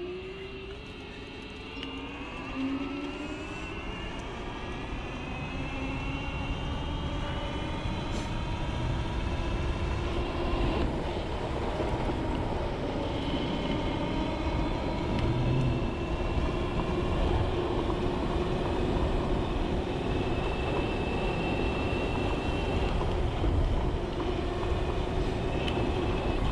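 Dualtron Spider electric scooter's motor whining as it speeds up, its pitch rising over the first ten seconds or so and then holding steady, over wind and road noise that grows louder with speed.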